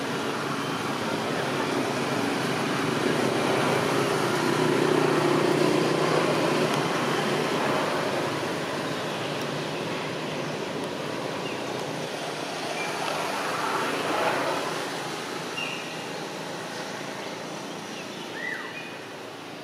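Outdoor traffic noise, a steady rush that swells as a vehicle passes a few seconds in and again later, with a few short high chirps near the end.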